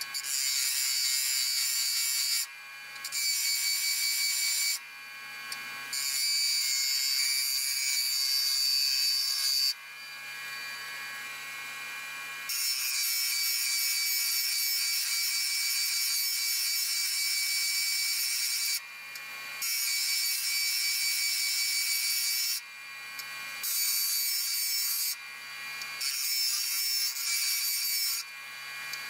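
Steel bowl gouge ground on the aluminium oxide wheel of a Vevor 8-inch variable-speed bench grinder: a harsh hiss of metal on the wheel in repeated passes of one to six seconds. Between passes are short pauses where only the grinder motor's hum is heard. The gouge is being reprofiled to a 40/40 grind.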